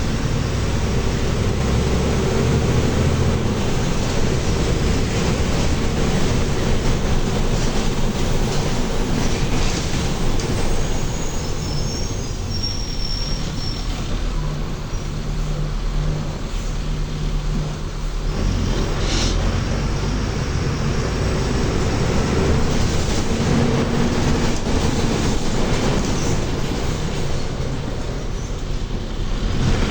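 Mercedes-Benz OF-1724L city bus's front-mounted diesel engine running under way, heard from on board with road and body noise; the engine note shifts in pitch several times as it speeds up and changes gear, and a faint high squeal comes in briefly near the middle.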